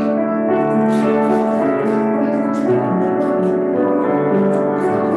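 Instrumental communion music led by piano, starting suddenly and playing steadily with long held notes.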